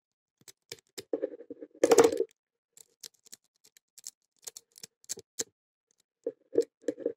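Metal lock pick and tension wrench working in a small brass padlock's keyway: irregular light clicks and scrapes as the pins are picked, with a louder rattling scrape about two seconds in.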